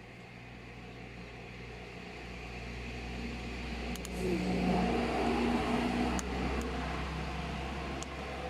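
A motor engine humming steadily, growing louder over the first few seconds and then holding, with a few faint clicks.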